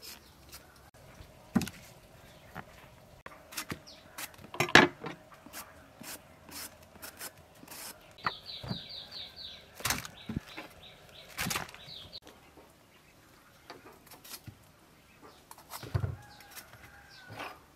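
Knife blade scraping and clicking as vegetables are peeled by hand, in scattered short strokes; the sharpest is about five seconds in. About eight seconds in, a bird gives a quick run of high, repeated chirps that lasts about four seconds.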